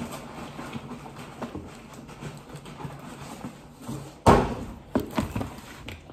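Cardboard rustling and scraping as a shoebox is pulled out of a cardboard shipping box, then a sudden thud about four seconds in as the box is set down, followed by a few lighter knocks as its lid is handled.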